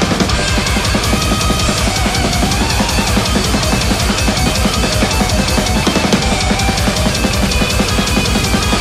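Heavy metal drum kit played hard over the band's recorded song: rapid, steady kick-drum strokes under snare hits and cymbal crashes, with the distorted band track underneath.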